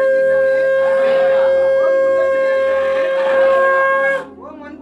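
Conch shell blown in one long, steady note that cuts off about four seconds in, with faint voices underneath.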